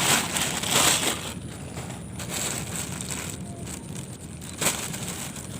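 Rustling and crinkling of packaging as fishing gear and bait are handled, loudest in the first second, with a single sharp knock near the end.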